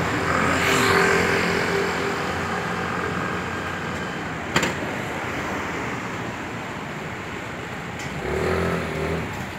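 Street traffic: cars and scooters going by with engines running, passing closest near the start and again near the end. A single sharp click about halfway through.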